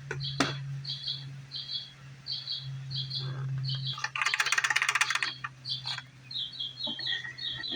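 A small bird chirping over and over, a short doubled chirp about every two-thirds of a second, over a steady low hum. About four seconds in comes a rapid clicking rattle lasting about a second, louder than the chirps.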